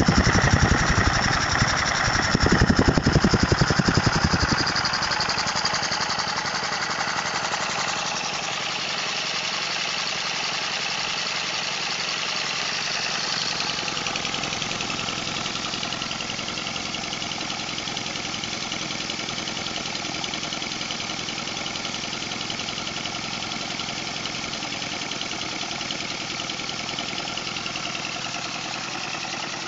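Homemade model steam engine running on compressed air: a fast, even clatter of exhaust puffs and moving parts. It is loudest for the first few seconds, then gradually fades.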